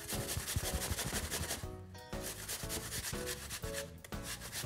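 A peeled apple being grated on a metal box grater: quick, evenly repeated scraping strokes, with a short pause just under two seconds in before the strokes resume.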